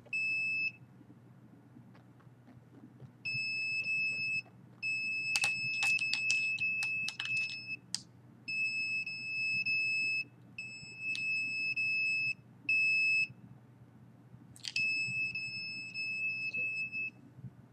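Handheld RF detector's alarm giving a high, steady beep in on-off stretches of about one to two seconds as it picks up a signal, with a few clicks about a third of the way in.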